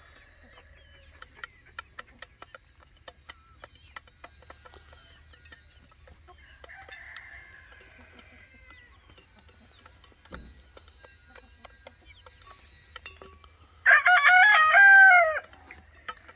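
Chickens pecking at feed, a scatter of light ticks, then near the end a rooster crows once, loudly: a single crow of about a second and a half that drops in pitch as it ends.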